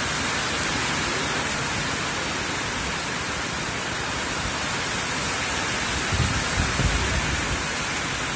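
Steady rain falling on the river and on a steel pontoon, an even hiss. About six seconds in, a few low rumbling thumps rise briefly over it.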